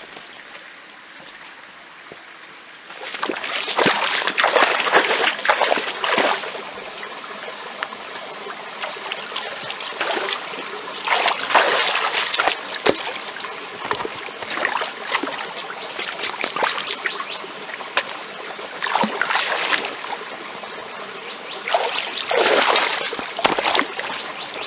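Legs wading through a shallow stream, water splashing and sloshing in repeated bursts over the steady trickle of running water. The first few seconds hold only the quieter trickle.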